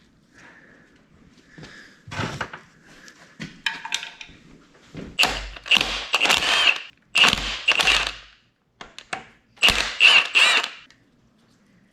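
Metal tools and engine parts clanking and rattling during engine disassembly. The sounds are soft and scattered at first, then come in three louder clusters in the second half.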